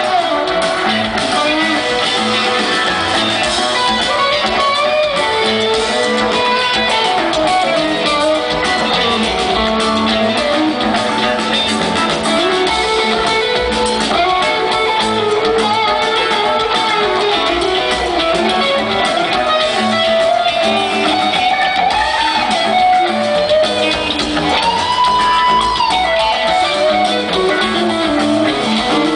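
Rock band playing live, with electric guitars to the fore.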